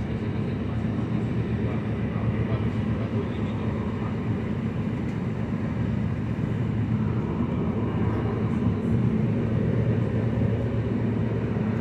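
Steady low rumble of a moving train heard from inside the passenger carriage, as it runs along the track at an even pace.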